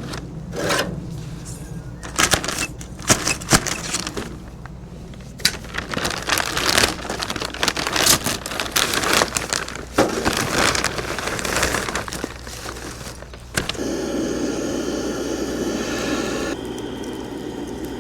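Irregular clicking, crinkling and crackling as a backyard barbecue fire is being started. A steady rushing noise takes over about three-quarters of the way in.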